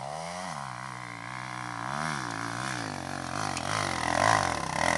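Trail motorcycle engine revving, its pitch rising and falling again and again as the throttle is worked, the revs coming quicker and closer together in the second half.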